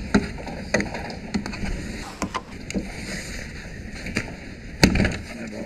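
Plastic front grille of a Nissan Qashqai being pried and pulled free by hand: scattered clicks and knocks, with one sharp, louder knock near the end.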